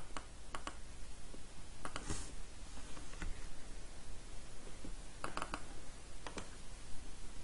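Scattered clicks from someone working a computer, a few single clicks and some quick pairs, over a steady faint hiss.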